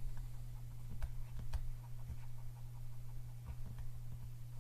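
Stylus writing on a tablet: light, irregular taps and scratches as handwriting is added stroke by stroke, over a steady low electrical hum.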